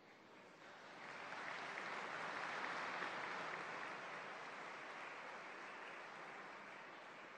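Large audience applauding, swelling over the first second or so and then slowly dying down.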